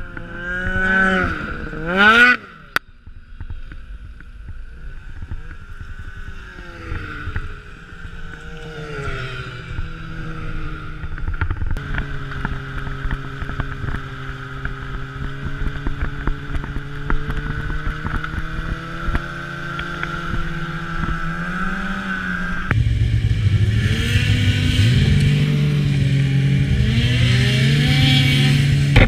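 Snowmobile engines running at speed, their pitch rising and falling with the throttle, with a sharp rev-up in the first two seconds. The sound changes abruptly a few times.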